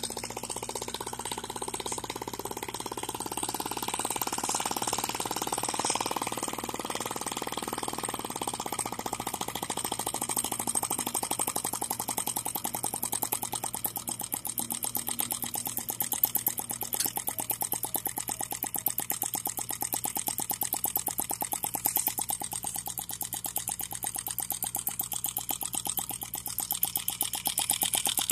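Miniature single-cylinder four-stroke model engine running at speed: a rapid, even rhythm of sharp firing pops.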